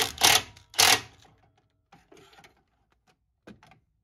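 Hand ratchet and socket clicking in a few loud, rasping strokes during the first second as a nut is turned, then a few faint clicks.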